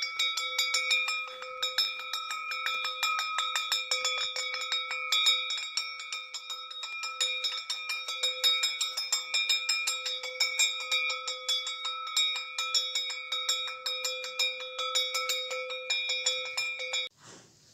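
A metal bell rung rapidly and without pause, its steady ringing overtones kept up by fast repeated strikes. It cuts off suddenly near the end.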